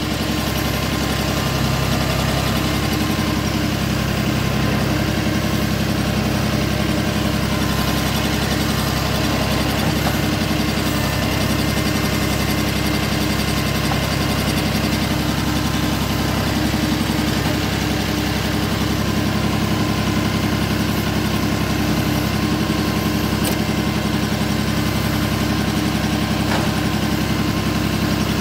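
New Holland compact tractor's diesel engine running steadily at low revs, heard from the operator's seat.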